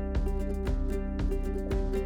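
Background music with a strummed guitar over sustained notes and a steady beat.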